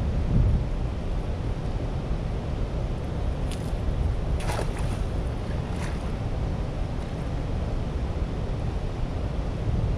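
Steady rush of turbulent water churning below a dam, with wind buffeting the microphone. A few short, sharp sounds stand out near the middle.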